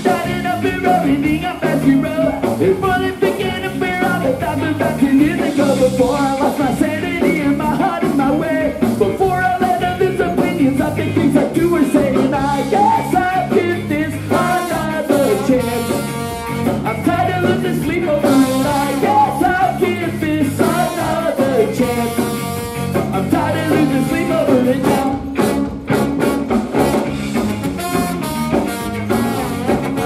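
A live ska-punk band playing. Electric guitars, drums, baritone saxophone and trombone play under a lead singer.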